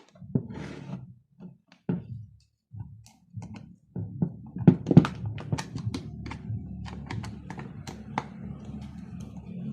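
Irregular knocks, taps and clicks of objects being handled, loudest about halfway through, over a low steady hum that starts about four seconds in.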